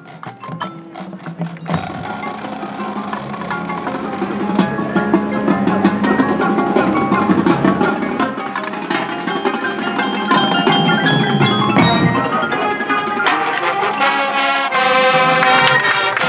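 Marching band playing a percussion-led passage, mostly front-ensemble mallet instruments with many short ringing pitched notes. It opens with sparse taps, then fills out and grows louder from about two seconds in.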